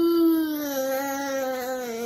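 A toddler's voice: one long drawn-out vocal note that slowly falls in pitch.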